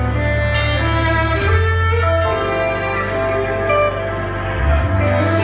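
Live band playing an instrumental passage: electric guitar and keyboards over deep held bass notes, with drum cymbal strikes.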